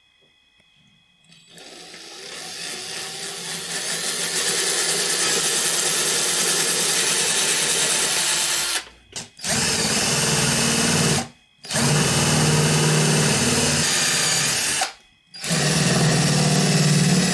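Cordless drill boring holes into a wooden batten, the motor running steadily under load. It starts about a second and a half in and builds up over a couple of seconds, then stops briefly three times between holes.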